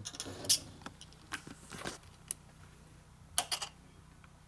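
Light metallic clicks and clinks of hand tools and loose screws against the case of a Harley-Davidson 4-speed transmission being taken apart, in a few short clusters.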